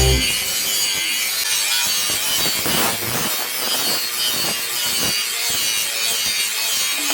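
Hand tool scraping across the steel of a knife blank in repeated strokes: a steady, hissy rasping like filing or sawing.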